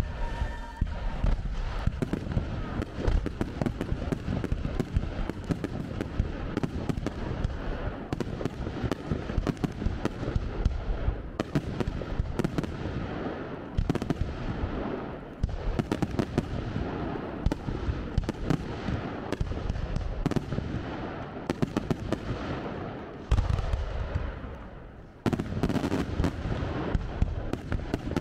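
Aerial fireworks going off in a dense, continuous barrage of rapid pops, crackles and bangs. The sound dips briefly a few seconds before the end, then resumes.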